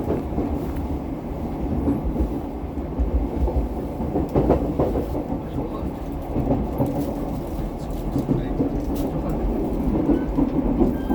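Commuter train heard from inside the car: a steady low rumble of the carriage running on the rails, with some clicks.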